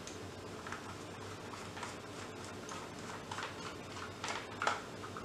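Faint, irregular small clicks and taps of a Phillips screwdriver turning out screws from the plastic casing of a digital Scalextric hand controller.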